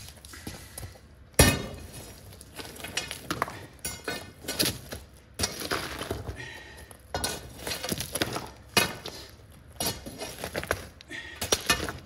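A heavy steel San Angelo bar striking and chipping concrete, with broken chunks clinking and scraping. There are about a dozen irregular blows, the hardest about a second and a half in.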